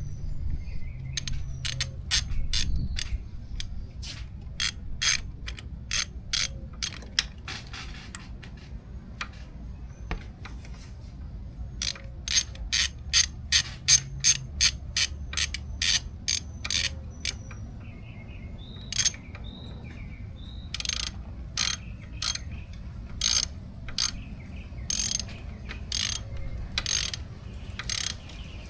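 Hand ratchet clicking in runs of quick strokes, snugging down the small bolts of an ATV engine's oil filter cover to a light torque of about 7 foot-pounds.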